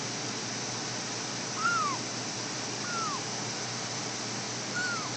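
A kitten making three short, high mews, each rising slightly then falling in pitch, about a second and a half apart.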